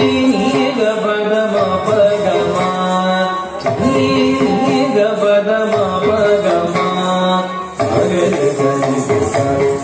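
Carnatic music accompanying a Bharatanatyam dance, with melodic phrases that break briefly about every four seconds.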